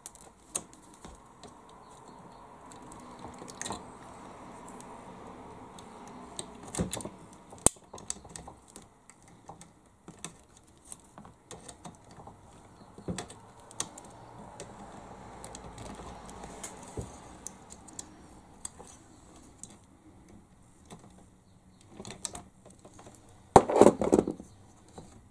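Wire cutters snipping off excess wire ends: scattered sharp clicks with quieter handling and rustling between them, and a louder clatter near the end.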